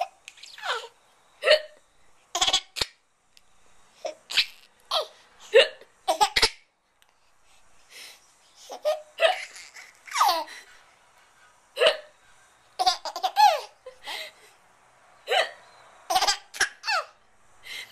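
A person hiccuping over and over, a sharp hiccup every second or so, laughing between and through the hiccups.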